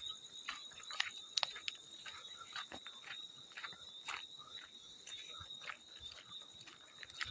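Field crickets chirping in a steady high-pitched trill, with small water splashes landing irregularly, about two a second.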